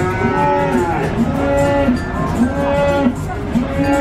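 Cattle mooing, with music playing at the same time: short held pitched notes repeating in a steady rhythm.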